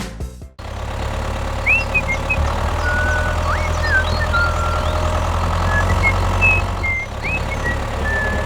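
An engine running steadily at a low idle-like hum, starting about half a second in, with small birds chirping in short calls over it.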